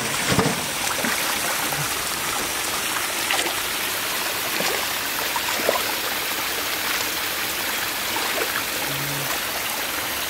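Shallow stream water running steadily over rocks, with a few brief splashes as hands move in the water.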